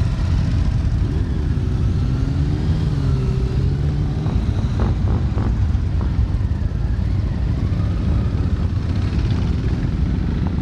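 Motorcycle engines running at low speed in a steady low rumble as the bikes roll past, one engine's pitch rising and falling for a few seconds about a second in. A few short clicks come near the middle.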